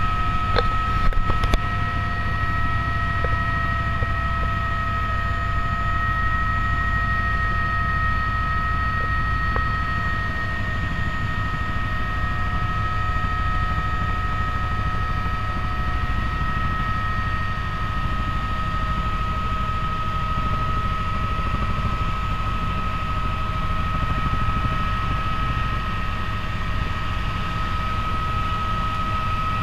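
Helicopter in flight heard from inside the cabin: a steady low rotor rumble with a constant high-pitched whine over it. A few light clicks come in the first second or two.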